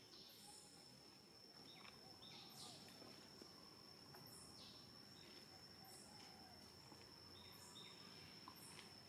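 Faint outdoor ambience of insects: a steady, high-pitched drone with short high chirps now and then.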